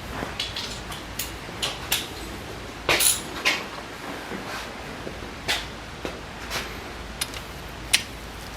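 Irregular metallic clicks and knocks of hand tools and loose engine parts, about fifteen over several seconds, the loudest about three seconds in, during teardown of a 1973 Honda CL350 engine's top end.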